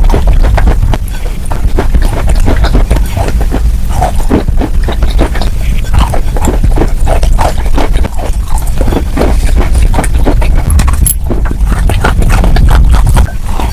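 Close, loud crunching: a dense run of crisp cracks and crackles, several a second, over a steady low rumble.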